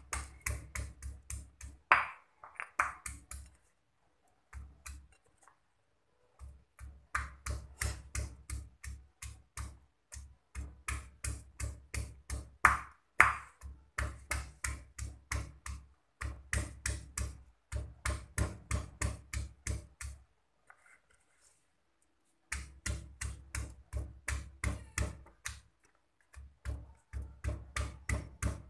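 Stone pestle pounding garlic cloves in a stone mortar: a steady run of about three or four knocks a second, broken by short pauses. Twice a sharper, ringing clink of stone on stone stands out.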